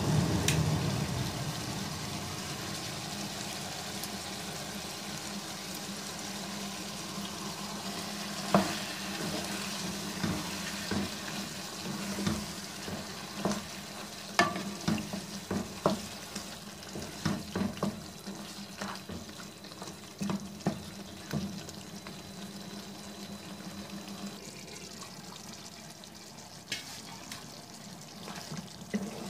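Mutton karahi sizzling in a pan as it is stirred with a wooden spatula; from about eight seconds in, the spatula knocks and scrapes against the pan again and again at an uneven pace.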